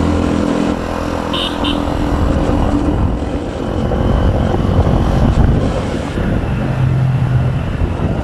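Motorbike engine running steadily while riding, heard from on the bike with a dense low rumble. Two short high beeps sound about a second and a half in.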